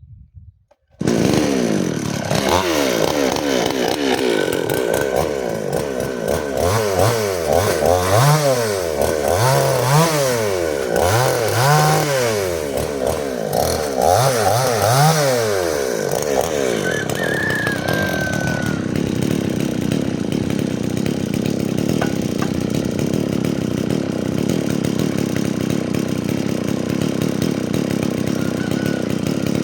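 Stihl chainsaw engine running. It comes in abruptly about a second in, revs up and down several times, then runs steadily at speed through the second half.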